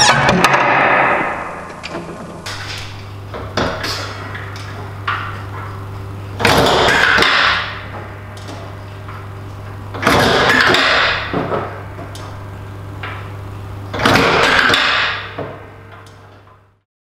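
Omega Uno grapevine grafting machine cycling three times, about every four seconds: each cycle is a sharp stroke followed by about a second of noisy rush as the cutting is cut. A steady low hum runs underneath, and the sound stops abruptly near the end.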